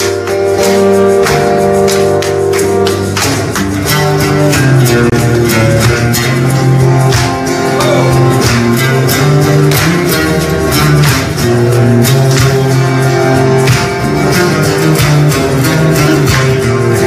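Instrumental passage on two acoustic guitars, strumming and picking chords, over a steady beat from a cajon and small hand percussion.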